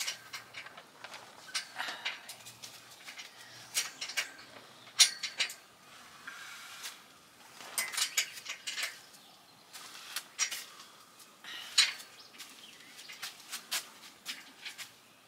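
Scattered metallic clinks and taps as steel carport frame tubing, fittings and bolts are handled and fitted together, the loudest knock about five seconds in.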